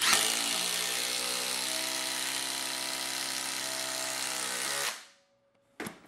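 Cordless impact driver driving a 6-inch screw down into stacked lumber. It makes a steady rattling buzz for about five seconds, then stops, followed by a short click near the end.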